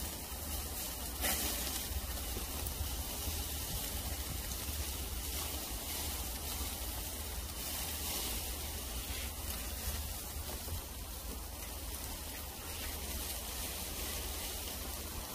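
Cubes of meat sizzling on a wire mesh grill over charcoal, a steady crackling hiss. A few brief clicks come as the pieces are turned with tongs, the loudest about a second in.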